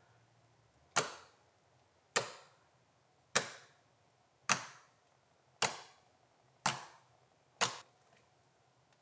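Fingertips poking into a thick, jiggly glue-and-borax slime made with bubble solution, each poke giving a sharp pop; seven pops, about one a second.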